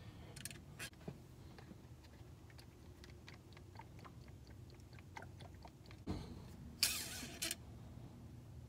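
Faint handling sounds while engine oil is topped up through a funnel: light clicks and ticks from the oil jug, funnel and dipstick. A soft thump comes about six seconds in, with a short rustle just after.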